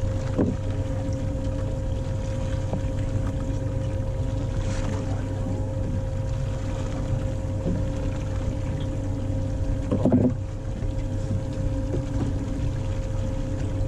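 A fishing boat's engine running steadily as a constant hum, with a brief louder sound about ten seconds in.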